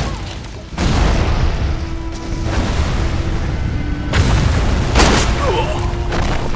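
Action-film soundtrack: deep booming impacts over dramatic music, with sudden loud hits about a second in, about four seconds in and again about five seconds in.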